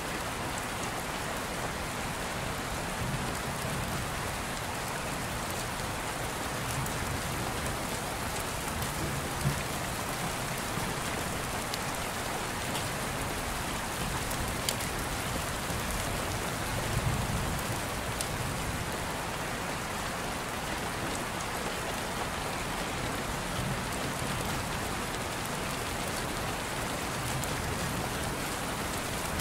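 Steady rain falling, an even hiss with occasional sharper drop clicks.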